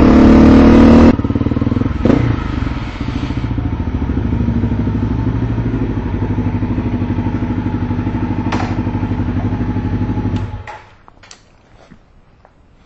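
Motorcycle engine revving briefly, then idling steadily for about ten seconds before it is shut off. After that come a few small clicks and knocks.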